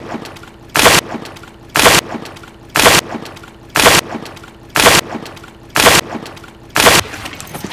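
A short, loud crash-like noise repeated seven times, about once a second, each burst identical in length, like one sound effect edited into a loop.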